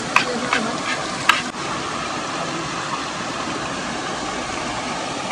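Steady rush of a small waterfall and river. A few sharp knife taps on a wooden chopping board in the first second and a half.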